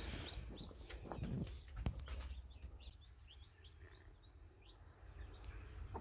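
Newly hatched cheonggye chicks peeping faintly under the brooding hen, short high peeps a few times a second, with a soft knock or two about a second and two seconds in.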